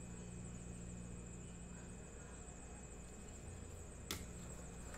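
Quiet room tone with a faint steady hum, broken once about four seconds in by a single short click on the table.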